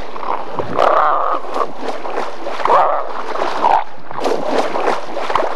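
Southern elephant seals calling in short, rough bursts, three of them louder than the rest, over a steady wash of water.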